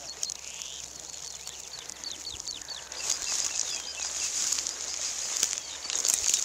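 Footsteps swishing through tall grass, with a songbird singing a quick run of repeated down-slurred notes about two seconds in.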